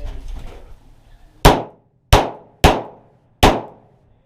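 Four 9mm pistol shots from a Glock 34 in quick succession, with uneven gaps of about half a second to under a second between them, as the shooter fires at targets starting a timed string.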